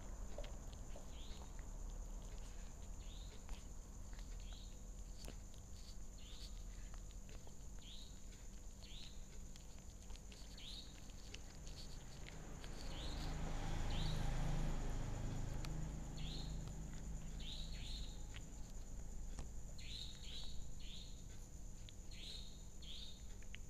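Kitten chewing and lapping at a pile of rice close to the microphone, heard as soft irregular clicks. Short high chirps that fall in pitch repeat about once a second. A low rumble swells up and fades away about halfway through.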